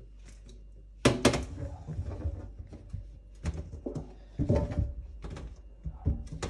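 Flat peaches being set down one by one into a wire-mesh strainer in a stainless steel sink: a series of dull thuds and knocks, the loudest a quick pair about a second in.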